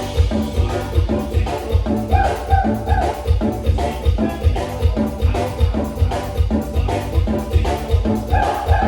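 A band playing a song: a drum kit keeps a steady beat over a heavy bass line, with a melody on top.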